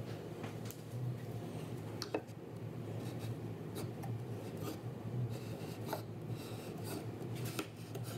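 Pencil scratching out layout lines along a small metal square on plywood, with a few sharp clicks as the square is set down and moved, the loudest about two seconds in. A steady low hum runs underneath.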